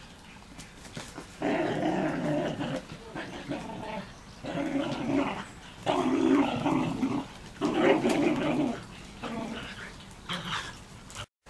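Whippet play-growling over a toy held in its mouth: a series of loud, rough growls about a second long each, with shorter ones between.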